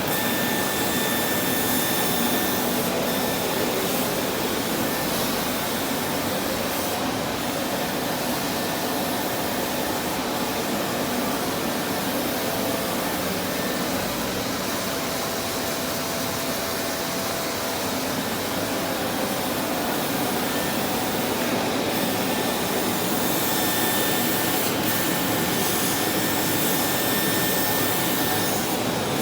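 CNC laser machine running: a steady rush of air like a fan or blower, with faint thin high whines that fade in and out.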